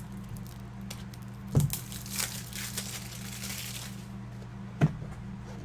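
Crinkling of plastic or foil card packaging while trading cards are handled, lasting about two seconds, with a thump on the table just before it and another about a second before the end.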